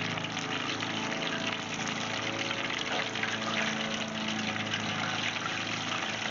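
Breaded yellow perch deep-frying in hot oil in a cast-iron pot, a steady bubbling sizzle.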